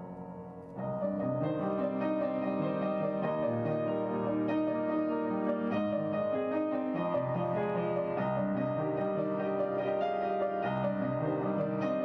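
Background piano music, slow and chordal; it rises noticeably in loudness as a new phrase comes in about a second in.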